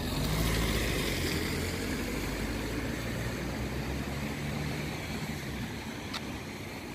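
Low, steady hum of a motor vehicle's engine running close by, swelling at the start and slowly fading away.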